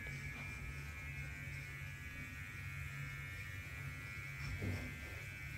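Steady electrical buzz with a low hum underneath, unchanging throughout.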